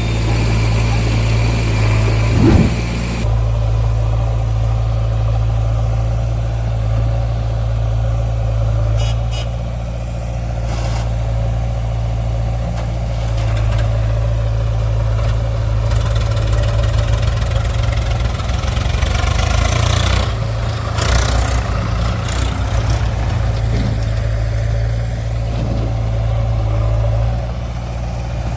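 Heavy diesel engine of an earthmoving or farm machine running with a steady low drone. There are a few short clicks and knocks, and a noisier stretch of working sound about twenty seconds in.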